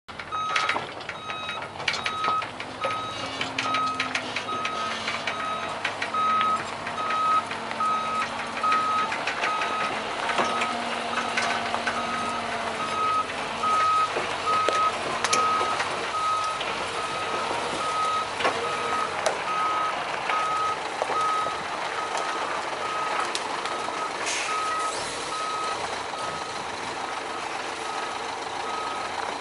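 A MAN logging truck's reversing alarm beeps steadily while the diesel engine runs and revs as the truck manoeuvres with its trailer. Occasional sharp knocks and clanks come through.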